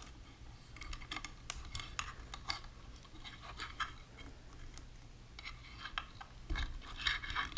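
Light metal clicks and scrapes of small shotgun parts being handled as a spring-loaded carrier latch and bolt are fitted back into a Franchi Affinity 3 shotgun, with a busier run of clicks near the end.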